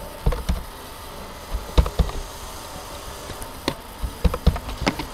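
Irregular sharp clicks of a computer keyboard and mouse, about ten in small clusters, as a short label text is typed and set, over a steady background hiss.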